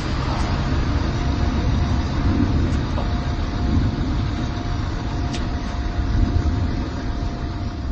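Steady deep rumble of Mount Etna erupting, heavy in the low end, with a faint thin steady tone above it and a few light ticks.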